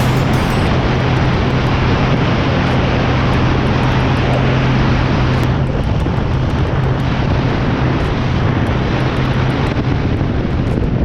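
Yamaha FX Cruiser jet ski running steadily at speed, its engine a constant hum under a loud rush of wind and water. The hum eases slightly about halfway through.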